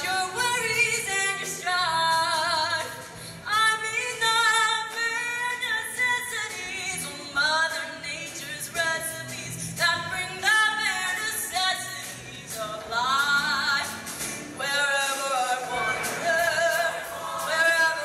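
Mixed high-school show choir singing a song, with vibrato on the held notes.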